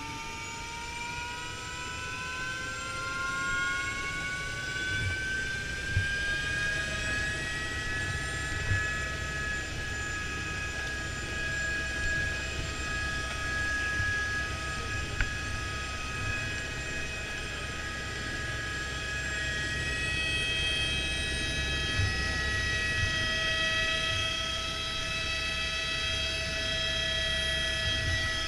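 Helicopter turbine and rotor heard from inside the cabin: a whine of several tones rises in pitch over the first several seconds and then holds steady over a constant low rotor rumble. A few small knocks come through.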